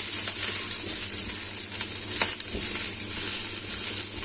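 Green beans and mushrooms sizzling steadily in hot oil with garlic, being stirred, with a few light knocks of the utensil against the pan.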